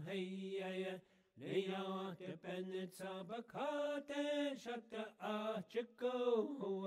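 A man's voice chanting in a Navajo-style vocal chant: phrases of held, slightly wavering notes, broken by a short pause about a second in.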